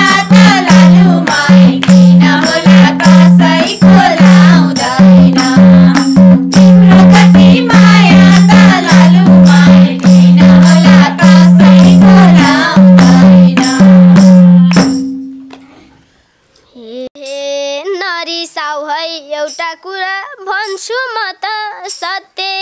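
Group singing of a Nepali dohori folk song, women's voices over rhythmic hand clapping and a steady low drone, stopping suddenly about fifteen seconds in. After a short pause a boy's voice follows.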